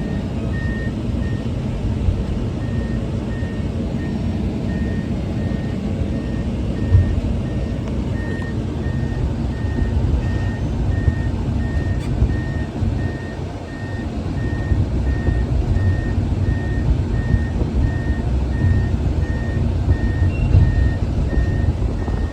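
Komatsu PC210 excavator's diesel engine running as the machine tracks, its travel alarm beeping steadily about twice a second.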